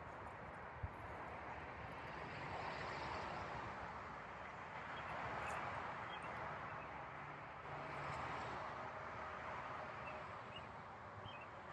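Highway traffic passing: a steady hiss of tyres and engines that swells and fades as vehicles go by, with one short click about a second in.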